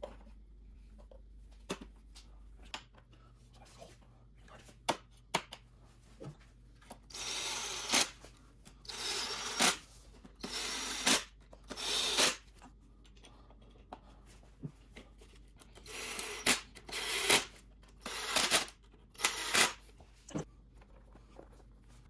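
Cordless power driver running in short bursts of about a second, driving screws into a handle frame. There are two groups of four bursts, with light clicks of parts being handled before and between them.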